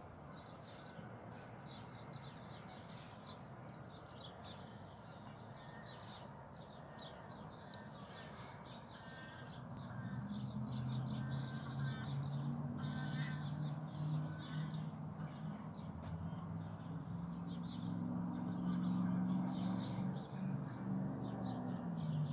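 Birds calling and chirping: many short, high calls. From about ten seconds in, a low steady hum joins and becomes the loudest sound.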